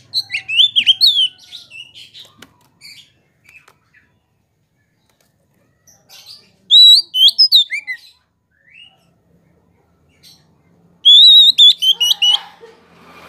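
Oriental magpie-robin (white-bellied 'kacer poci' form) singing: three loud bursts of quick, sweeping whistled phrases, a few seconds apart with quiet gaps between.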